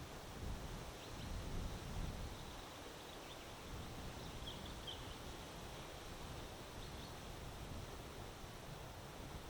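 Wind gusting over the microphone, a low buffeting rumble that is strongest in the first two seconds and then settles into a steady windy hiss. A few faint, short bird chirps come through around the middle.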